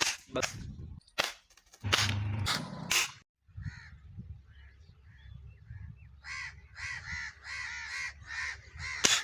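A few sharp cracks and a short burst of noise in the first three seconds. After a brief break, crows caw over and over, the calls coming thick and fast from about six seconds in, and another sharp crack sounds just before the end.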